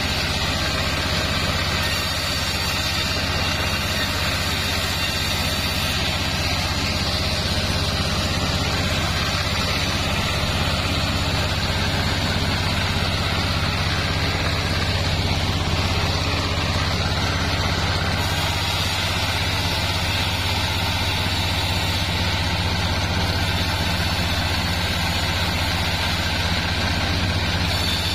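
Band sawmill running steadily with a constant low hum as a sengon board is fed through its blade.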